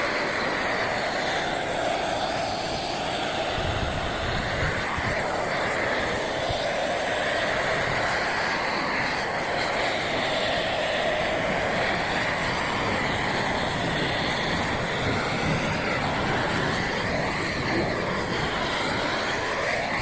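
Propane torch burning steadily with an unbroken rushing noise, charring wood boards for shou sugi ban.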